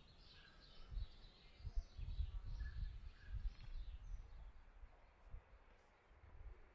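Faint outdoor ambience of small birds chirping, with uneven low rumbling underneath that is strongest in the middle. The birdsong thins out in the last couple of seconds.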